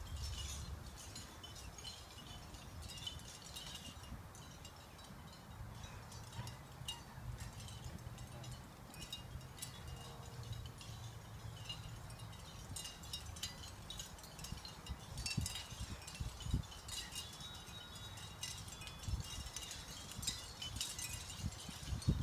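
Light, scattered high chiming notes throughout, over a steady low rumble, with a few dull thumps in the second half.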